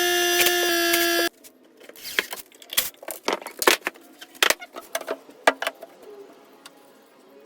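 A high-speed power tool runs with a steady whine that shifts pitch slightly under load, then cuts off suddenly about a second in. Scattered knocks and clatter follow, wood pieces and tools being handled.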